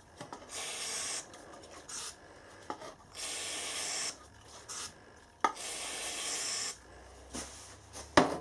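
Aerosol spray can hissing in three short blasts, flushing swarf out of a freshly tapped hole in a mill table. A few light clicks between the blasts and a sharp knock near the end.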